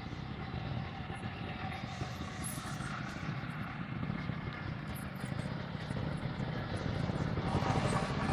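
Off-road motorcycle engine running at low revs as the bike picks its way over the slope, growing louder and revving higher near the end.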